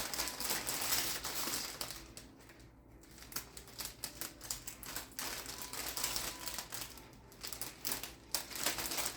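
Plastic gift-basket wrap crinkling and crackling as it is handled and folded around the basket, in irregular bursts with a couple of short lulls.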